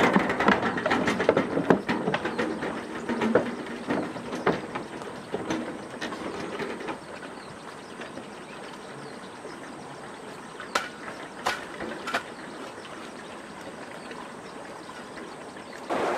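Irregular clattering and knocking for the first several seconds, then a low steady background broken by three sharp clicks.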